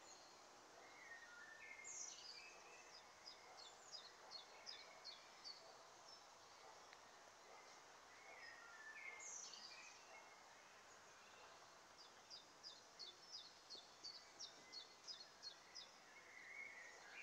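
Faint songbird singing over a soft outdoor background hiss: two song bouts, each a few opening notes followed by a long run of short high notes repeated about three times a second, the first about two seconds in and the second from about nine seconds in.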